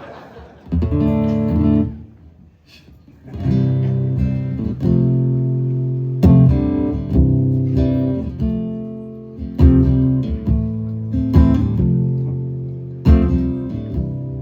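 Guitar strumming chords, each struck and left to ring: a short chord about a second in, a brief lull, then a chord every two to three seconds.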